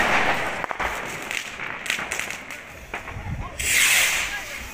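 New Year's fireworks going off: scattered sharp bangs and crackles, with a loud hissing burst about three and a half seconds in.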